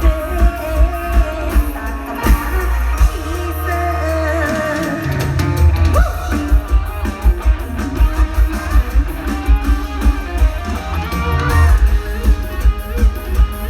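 Live mor lam band music played loud through a big concert sound system, with a plucked electric lead over a heavy kick drum at about two beats a second. The beat drops out for a couple of seconds under a held bass note about three seconds in, then comes back.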